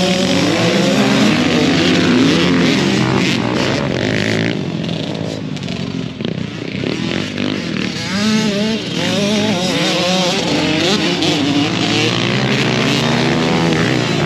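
Several youth four-wheeler (ATV) engines racing on a dirt track, their pitches overlapping and rising and falling as the riders throttle on and off.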